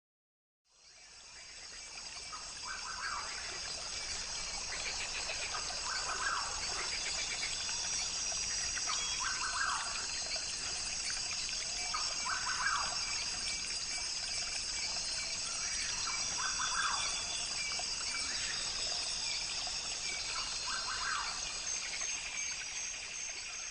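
Nature ambience: a steady, high-pitched insect chorus with a call repeating roughly every three seconds, fading in about a second in.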